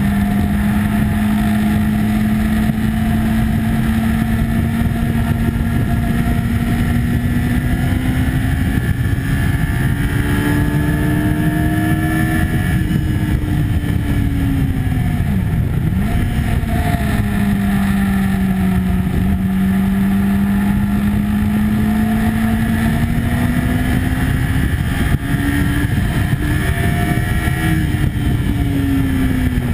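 A sport motorcycle's engine under way on track, heard onboard over heavy wind rush. Its note holds fairly steady, climbs gradually for a few seconds, drops sharply about halfway through and then rises again, with a brief bump late on.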